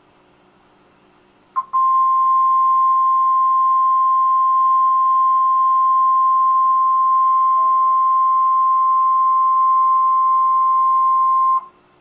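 NOAA Weather Radio 1050 Hz warning alarm tone, played through a weather radio receiver: one steady tone lasting about ten seconds, starting about a second and a half in and cutting off just before the end. It signals that a warning message, here a tornado warning, follows.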